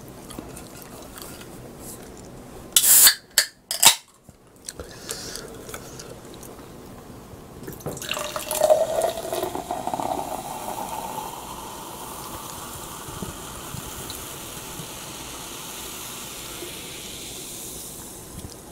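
Can of Welch's grape soda opened with a few sharp cracks about three seconds in, then poured into a glass mug from about eight seconds, the pouring note rising as the mug fills. The carbonated soda then fizzes steadily in the glass.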